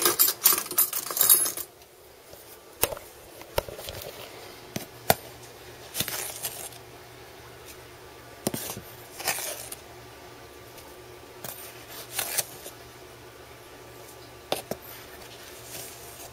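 Plastic containers and cups clattering as they are handled on a kitchen counter for the first couple of seconds, then scattered sharp clicks and short scrapes of a spoon against a plastic Nesquik tub and cup as chocolate milk powder is scooped.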